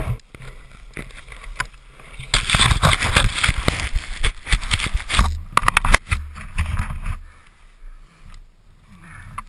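Ski-Doo E-TEC two-stroke snowmobile engine revving with the sled stuck in deep powder, snow and clothing scraping over the helmet camera. There are a few sharp knocks about six seconds in, and the engine noise drops away about seven seconds in.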